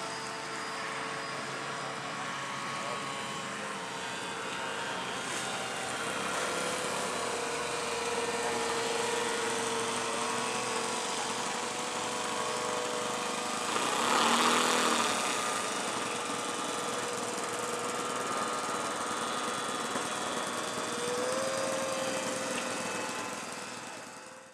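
Small engine of a radio-controlled model floatplane droning steadily, with a louder rush of noise about 14 seconds in and a slight rise in pitch near the end before it fades out.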